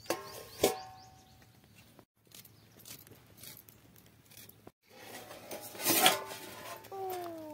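Steel plate used as a lid clanking down onto an iron kadai twice, ringing briefly. About six seconds in it clatters again, the loudest moment, as the plate is lifted off the steaming pot.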